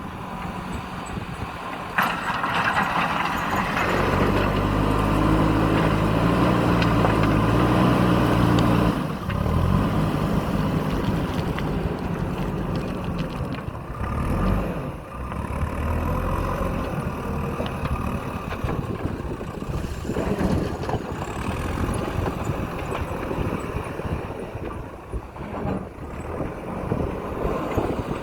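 Diesel engine of a JCB backhoe loader running at work, revving hard for several seconds from about four seconds in, then dropping back to a steadier, lower run. A sharp knock sounds about two seconds in.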